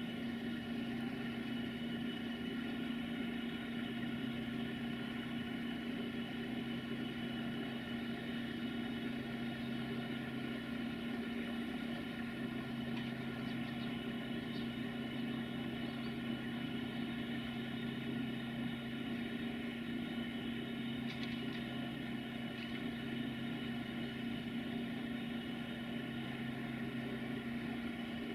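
Class 060-DA (LDE2100) diesel-electric locomotive's Sulzer engine idling: a steady, even hum that neither rises nor falls. A few faint high ticks come through about halfway and again about two-thirds of the way in.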